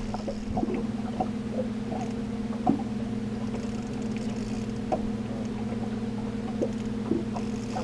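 Boat motor running steadily at trolling speed, a constant hum with a low drone. Scattered small clicks and squeaks sound over it.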